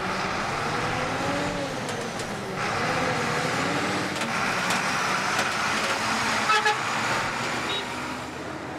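Old bus driving on a gravel dirt road: engine and road noise running steadily, with a short horn toot about six and a half seconds in.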